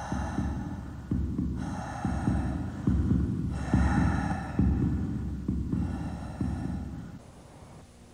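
Suspense soundtrack cue: a low, throbbing heartbeat-like pulse about once a second under a high synthesized drone that swells in and drops away in stretches. It fades out about a second before the end.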